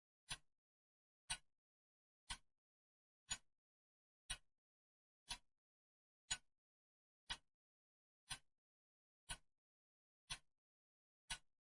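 Clock ticking steadily, one sharp tick a second, each with a faint short tail, with silence between the ticks.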